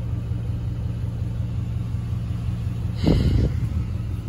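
Vehicle engine idling with a steady low hum, heard from inside the cab through an open window. A brief louder rush of noise cuts in about three seconds in.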